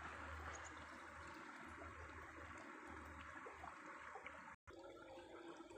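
Faint trickle of shallow water, with a low rumble coming and going; the sound cuts out for an instant near the end.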